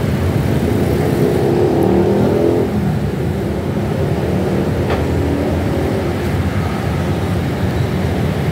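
Steady rumble of road traffic passing below, with one vehicle's engine rising in pitch as it accelerates from about a second in.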